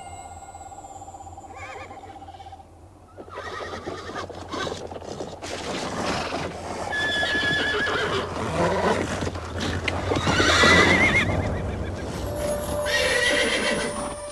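A few seconds of sustained eerie music, then horses neighing and whinnying repeatedly over a noisy commotion, loudest near the end.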